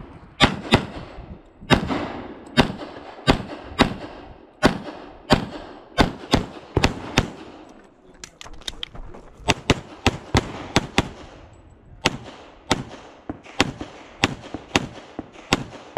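Semi-automatic competition pistol fired in fast strings of sharp shots, mostly in quick pairs, about thirty in all, with a short pause a little before halfway.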